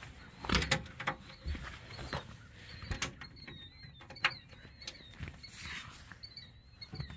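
Scattered clicks and knocks of a Ural sidecar's seat and tonneau cover being lowered and handled back into place, the sharpest knock about four seconds in.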